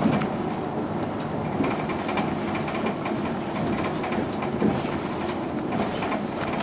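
Interior running sound of a 2006 Isuzu Erga PJ-LV234L1 non-step city bus under way: steady diesel engine hum and road noise, with a few light clicks at the start and again near the end.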